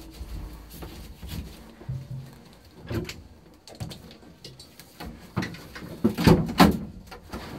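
Inside a Toyota Celica rally car rolling on after its engine has blown: no engine running, just scattered knocks, rattles and road noise, with a cluster of louder thumps about six seconds in.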